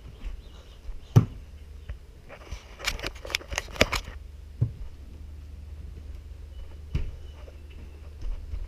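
Scattered clicks and knocks, with a quick rattling run of clicks in the middle, as a low-mounted action camera is jostled about.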